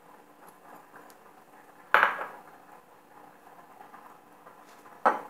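Kitchenware clinking as a ceramic bowl of chopped onion and leek is emptied into a non-stick frying pan and put down: a sharp clink with a short ring about two seconds in, and a second, shorter knock near the end.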